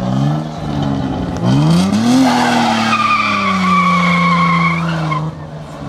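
Car engine revved hard, rising sharply about one and a half seconds in and then held high while the wheels spin in a burnout; a high tyre squeal runs through the middle, and both cut off near the end.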